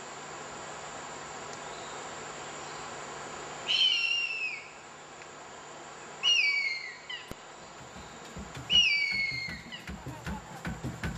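Harpy eagle calling three times, about two and a half seconds apart: loud, high screams that fall in pitch, over a steady hum of rainforest insects. In the last few seconds drum-led music comes in.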